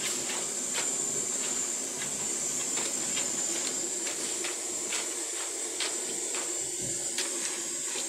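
Thin potato sticks deep-frying in a large wok of hot oil: a steady sizzling hiss with scattered small pops and crackles.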